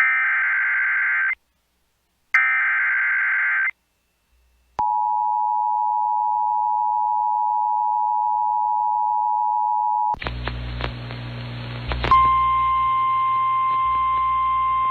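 Emergency Alert System header: two short screeching bursts of SAME data tones, then the steady two-tone attention signal held for about five seconds. After a brief hum and crackle as the feed switches, the steady NOAA Weather Radio warning alarm tone starts about twelve seconds in, ahead of a severe thunderstorm warning.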